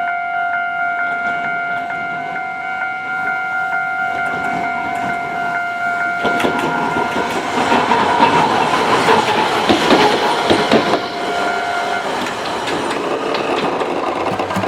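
Level-crossing alarm ringing with steady electronic tones, while an Iyo Railway city tram crosses from about six seconds in, its wheels clattering and rumbling over the rails loudest around nine to eleven seconds. The alarm stops about twelve seconds in as the tram clears the crossing.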